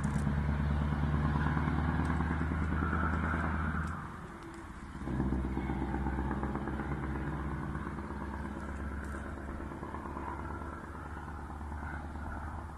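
Scania V8 truck with an open (straight-piped) exhaust running under power, a deep, steady engine note. About four seconds in the note drops away for about a second, then the engine pulls again and slowly fades.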